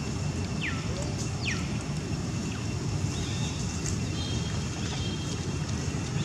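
Steady low outdoor rumble throughout, with two short high-pitched calls falling in pitch about a second in, and faint thin high tones near the middle.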